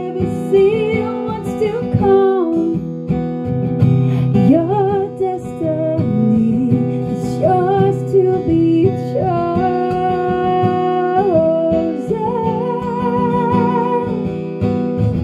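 A woman singing over a strummed acoustic guitar in a live, unamplified-sounding acoustic performance, her voice sliding between long held notes, some with a wavering vibrato.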